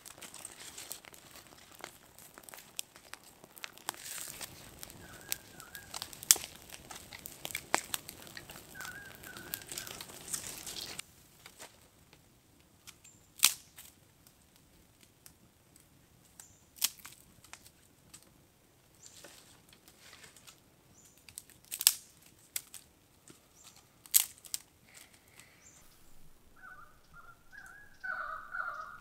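Campfire crackling as a dry grass and leaf tinder bundle catches: a dense, busy crackle for about the first eleven seconds, then, after a sudden drop, scattered single sharp pops and snaps a few seconds apart. A bird calls briefly near the end.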